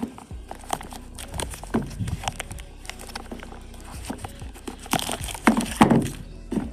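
Handling noises from working on parts by hand: scattered light clicks and rustling, with a louder cluster of scraping and knocking about five seconds in.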